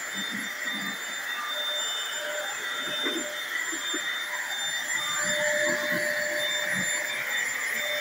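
Stick vacuum cleaner running steadily with a high motor whine as its floor head is pushed over a hardwood floor, with a few low bumps along the way.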